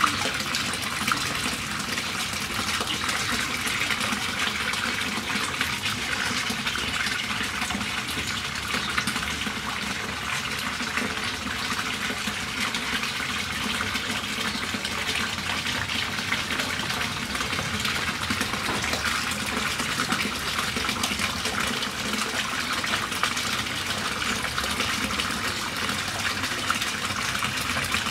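Water pouring and splashing steadily into a pond, an unbroken even rush.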